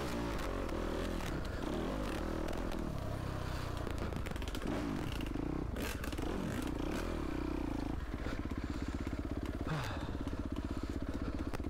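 Yamaha YZ250F dirt bike's 250 cc four-stroke single engine revving up and down with the throttle while riding a trail, then holding a steady, low, even chug from about eight seconds in. Scattered knocks and clatter from the bike on the rough ground.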